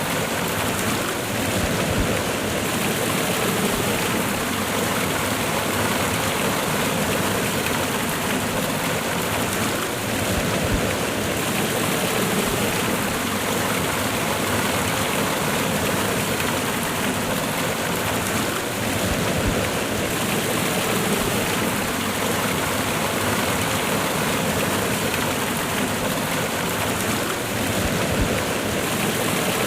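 Cascading waterfall: water rushing and splashing over rocks in a steady, even roar-like hiss.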